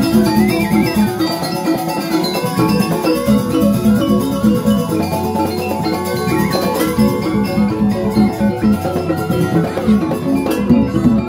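Balinese gamelan ensemble playing: ringing metallophone notes repeated in a fast, steady figure over kendang drums.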